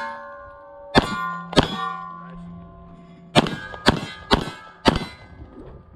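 Pistol shots on steel plates, each crack followed by the plate ringing with a metallic clang: two shots about a second in, then four quicker ones about half a second apart from about three and a half seconds in.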